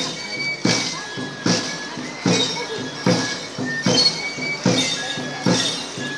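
Andean dance music of pipe and drum: a drum beaten in a steady pulse, about five beats every four seconds, under a high flute playing short held notes.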